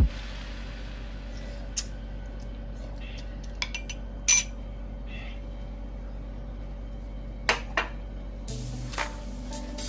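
A few scattered, sharp clinks and knocks of kitchen utensils against a metal pot and dishes, the loudest about halfway through, over a steady low hum.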